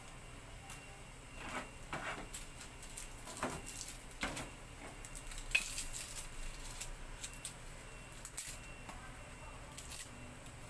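Kitchen utensils and dishes being handled: a run of light, irregular clicks and knocks, the sharpest clink about five and a half seconds in.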